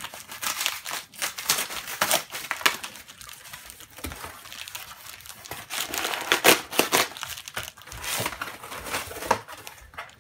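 Cardboard shipping box being torn open by hand: irregular ripping and crinkling of cardboard, loudest a little past the middle.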